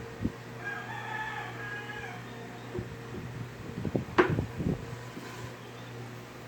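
A rooster crowing once, a call of about a second and a half, over a steady low hum. A few knocks and taps follow, the sharpest about four seconds in.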